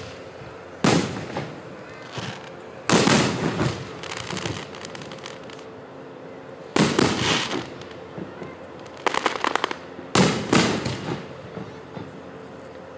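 Aerial fireworks shells bursting: about five sharp bangs spaced a few seconds apart, some trailing off in crackling, with a quick cluster of pops around nine seconds in.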